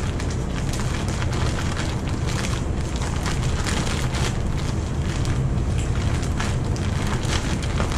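Plastic zip-top bag crinkling and rustling steadily as it is shaken to coat shrimp in seasoned flour, with a dull rumble of handling close to the microphone.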